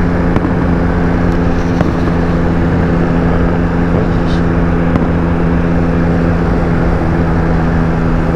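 Motorcycle engine running at a steady, unchanging pitch, heard through a helmet-mounted camera mic together with a dense rush of wind and road noise.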